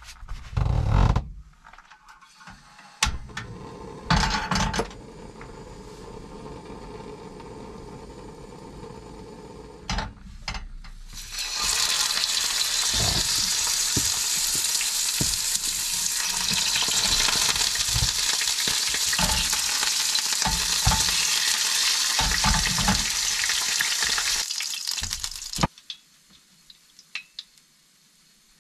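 Fish frying in hot oil in a nonstick pan on a portable gas stove: a loud, steady sizzle sets in about eleven seconds in and cuts off suddenly near the end. Before it, a few sharp knocks and clatter of the pan and stove.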